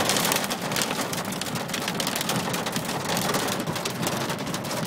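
Hail and heavy rain hitting the car's roof and windshield, heard from inside the car as a dense, continuous clatter of small impacts.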